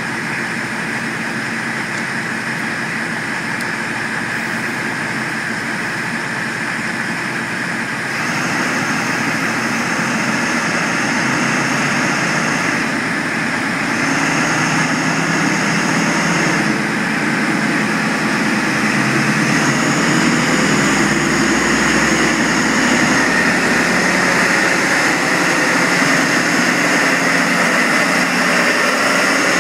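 Class 43 HST power car's Paxman VP185 diesel engine running, getting louder in steps as it powers up and the train pulls away, the power car passing close near the end.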